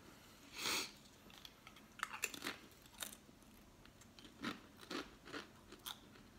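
A person biting into a wavy Pringles potato crisp, with one sharp crunch just under a second in, then chewing it with a run of short, irregular crunches.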